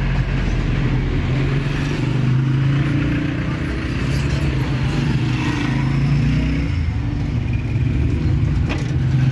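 Steady hum of motor traffic, with vehicle engines running close by, and one short click near the end.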